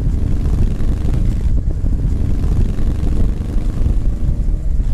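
Motorcycle engine running under way and picking up speed gently, heard with wind rumble on the on-board camera's microphone.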